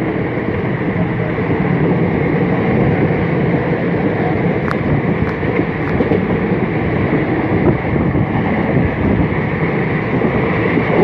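Passenger train running at speed, heard from inside a coach: a steady rumble of wheels on the track mixed with rushing air, with a few light clicks about halfway through.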